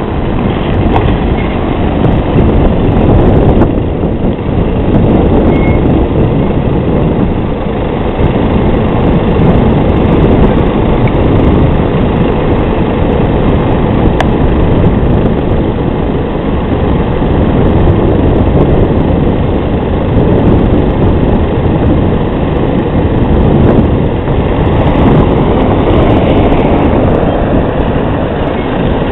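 Distant airliner's engines in flight, a steady rumble that swells and eases slowly.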